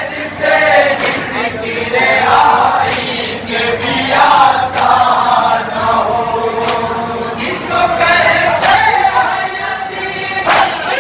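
Men chanting a nauha, a Shia lament, in chorus, with sharp slaps every second or two from hands beating on chests in matam.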